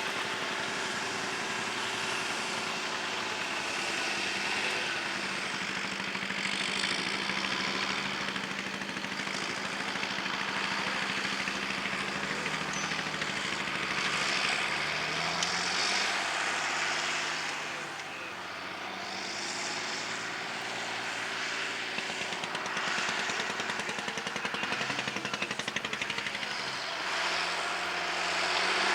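Tractor engine running steadily under load while pulling a plough, its note shifting in pitch about halfway through, over a broad rushing noise.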